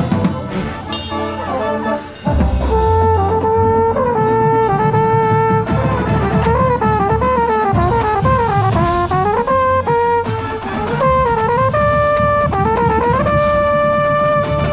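Drum corps brass hornline playing, led by a mellophone close to the microphone: one prominent melody of held notes and bending runs. A low sustained bass comes in after a brief dip about two seconds in.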